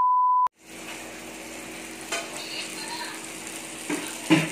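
A loud steady beep tone cuts off about half a second in. Then meat sizzles on an electric samgyupsal grill plate, with metal tongs clacking against the pan near the end.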